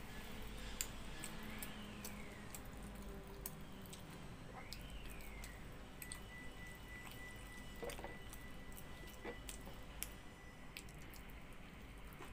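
Faint eating sounds from a meal eaten by hand: chewing and wet squishing of water-soaked rice (pakhala), with scattered small clicks.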